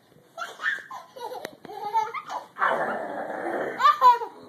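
Young child squealing and laughing excitedly in several short bursts, with a longer, about one-second burst of laughter around the middle and high rising squeals near the end.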